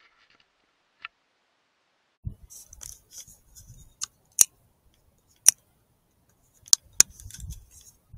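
A handful of sharp, loud clicks spaced a second or so apart, with low rubbing and handling noise between them.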